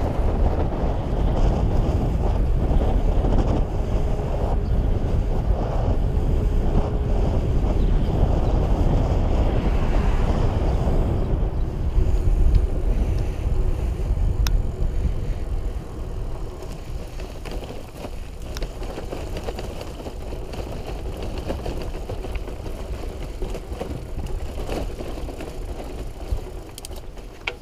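Loaded mountain bike rolling along a narrow unpaved trail: steady tyre and riding noise with wind buffeting the microphone, louder for the first half and easing off after about fifteen seconds.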